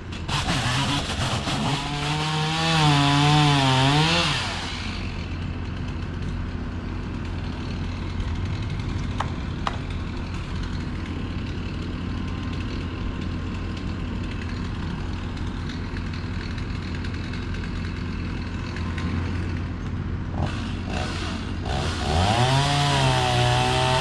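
A chainsaw cutting wood, its pitch wavering as it bogs and revs under load, loudest about two to four seconds in and again near the end. In between, a quieter steady engine idle runs.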